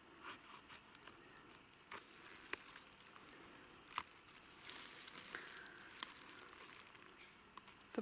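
Faint crackling and scraping as a multitool's serrated blade cuts and pries bracket fungi (polypores) off a dead tree trunk, with a few sharp snaps, the loudest about four seconds in.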